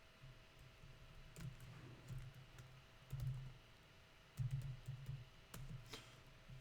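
Faint, scattered clicks of a computer keyboard and mouse, a few sharp ones standing out.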